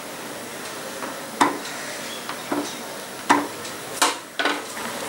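Wooden spoon stirring simmering milk pudding in an aluminium pan, knocking against the pan about half a dozen times over a steady hiss. The loudest knock comes near the end, as the spoon is laid down on the stove.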